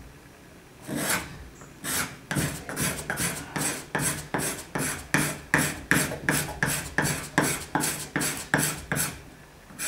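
Hand file rasping the sapele wood of a homemade Japanese kanna plane body at its mouth, in quick back-and-forth strokes, about three a second, starting about a second in and stopping near the end.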